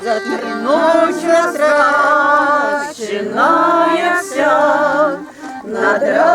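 A song being sung: a voice holding long, wavering notes with music behind it.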